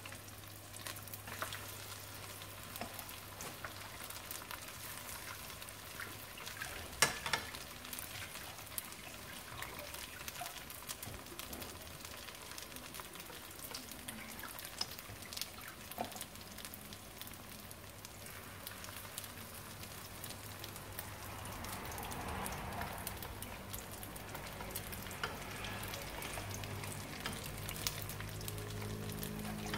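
Oil sizzling and crackling steadily around spring rolls shallow-frying in a wok, with occasional clicks of wooden chopsticks against the pan as the rolls are turned. The sharpest click comes about seven seconds in. A steady low hum runs underneath.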